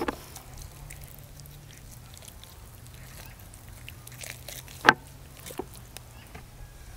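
Raw chicken being pulled apart and skinned by hand on a wooden board, giving small soft wet clicks over a steady low hum. One short loud sound comes about five seconds in.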